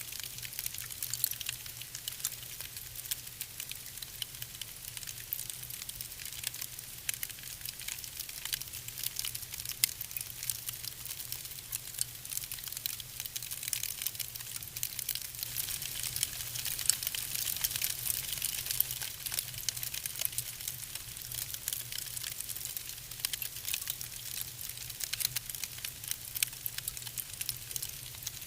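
Wood fire burning in a fireplace: steady hissing with frequent small sharp crackles and pops, and a steady low hum underneath.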